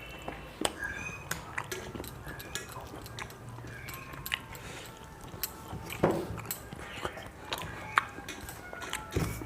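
Close-up eating sounds of a meal of rice and fish: chewing and mouth smacking with many short sharp clicks and occasional clinks of a plate or bowl, busiest about six seconds in and again near the end.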